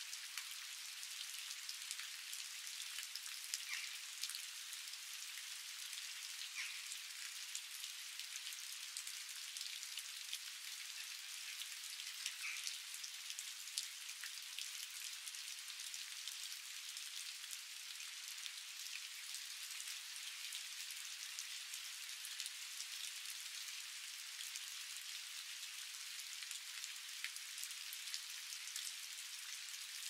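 Steady rain falling on a small garden pond and its stone surround: an even, high hiss of drops, sprinkled with sharper individual splashes.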